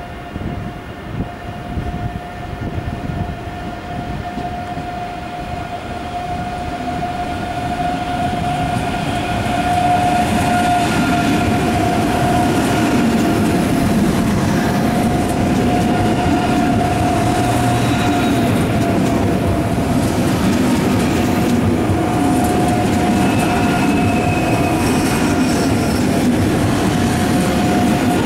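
ICE 3 high-speed electric train moving slowly through a station, with a steady electric whine over the running noise. It grows louder over the first ten seconds, then holds steady.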